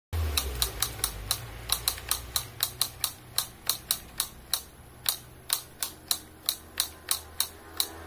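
Wooden woodpecker toy pecking as its lever is worked by hand: the plywood bird's beak taps the upright wooden post in a quick, somewhat uneven series of sharp clicks, about three to four a second.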